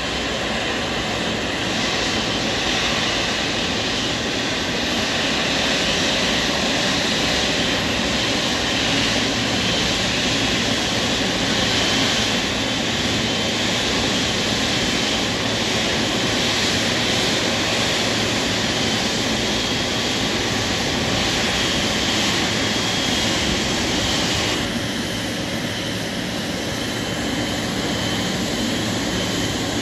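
Jet engines of an ANA Boeing 777 taxiing at idle power: a steady rush with a thin high-pitched whine on top. About 25 s in, as the airliner nears its stop, the upper part of the sound falls away and it grows a little quieter.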